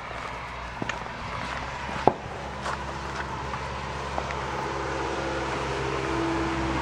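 Puppies' paws scampering on loose gravel, a scatter of light clicks with one sharper click about two seconds in, over a steady low rumble that swells toward the end.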